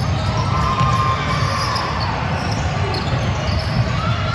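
Basketball game noise: basketballs bouncing on the court over a steady din.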